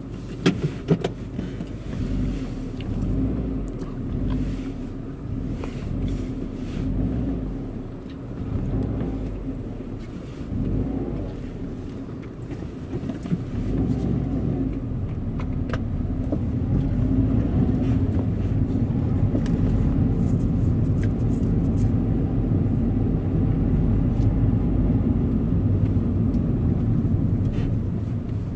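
Stock 2011 Subaru WRX's turbocharged 2.5-litre flat-four engine on its factory exhaust, running and revved up and down several times. It then holds a steady, louder note for the last ten seconds or so.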